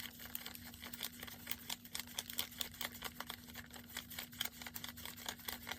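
Paper dollar bills being counted by hand: a quick, irregular run of soft paper flicks and rustles, several a second, over a faint steady hum.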